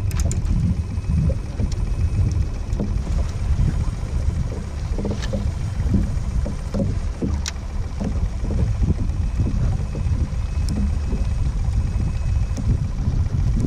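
Hobie Pro Angler 14 kayak moving on open water: a steady, uneven low rumble with scattered light clicks.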